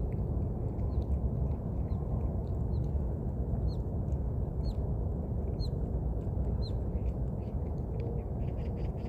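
Short, high chirps that fall in pitch, about one a second, over a steady low rumble; a quick run of ticks near the end.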